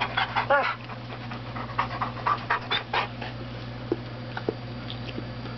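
A yellow Labrador and an Alaskan malamute play-wrestling: quick panting and huffing breaths with a short whine about half a second in. After about three seconds it eases to lighter panting and a few small clicks.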